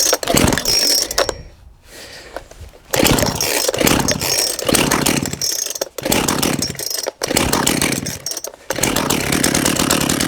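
Small two-stroke chainsaw engine being pull-started warm with its chain fitted: it fires and runs up in short bursts that die away several times, then catches about nine seconds in and keeps running, rough with the chain on.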